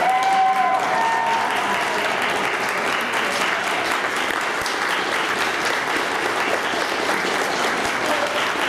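Audience applauding in a large hall, with a voice calling out about a second in.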